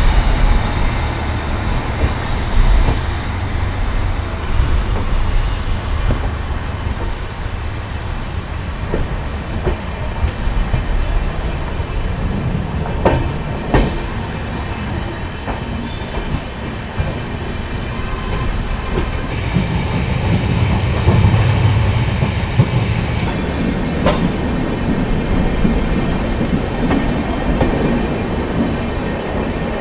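Passenger train rolling out of the station, heard from the coach side: a steady rumble of the coaches on the track, with a few sharp clicks as the wheels cross rail joints and points in the yard, and a brief high wheel squeal toward the end.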